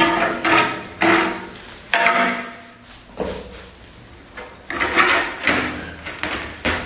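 Sharp knocks and clatters of a large ceramic floor tile being handled on a mortar bed, each with a short ringing tone. There are several about half a second apart at the start and an irregular run of them near the end.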